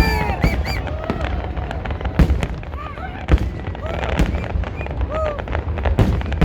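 Fireworks bursting in a rapid string of sharp bangs, the loudest about two, three and six seconds in, over a steady low rumble.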